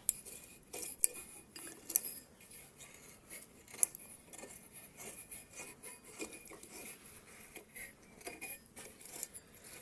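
Light metallic clinks, taps and rattles from metal parts of an old lawnmower being handled and moved, with sharper clanks about one, two and four seconds in.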